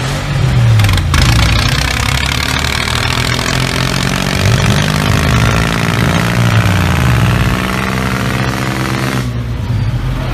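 A vehicle engine running, its pitch rising and falling, with a rough, noisy layer that starts abruptly about a second in and cuts off sharply near the end.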